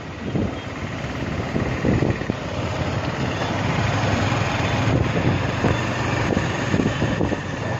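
Motor scooter running steadily on the move, its engine hum mixed with road noise.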